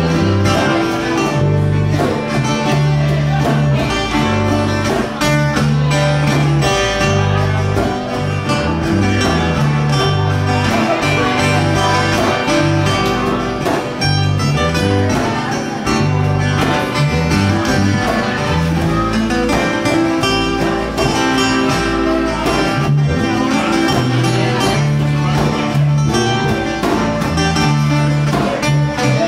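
Live acoustic country band playing: a strummed acoustic guitar over an electric bass line with a steady beat.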